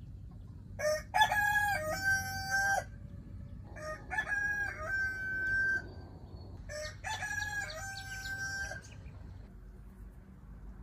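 Rooster crowing three times in a row. Each crow lasts about two seconds and ends on a long held note.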